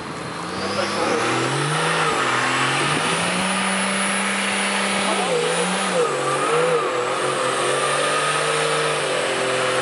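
Toyota Land Cruiser 70 engine pulling under load as the truck crawls through mud. The engine note climbs about a second in, holds high, wavers up and down around the middle, then settles into a steady drone.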